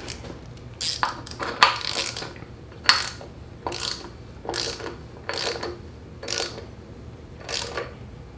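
Ratchet wrench with a hex socket clicking in short bursts, about one a second, as it snugs up a hex bolt on an engine's oil filter adapter.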